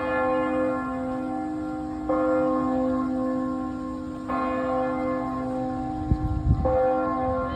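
Church bell tolling slowly, struck four times about two seconds apart, each stroke ringing on into the next. A brief low rumble comes about six seconds in.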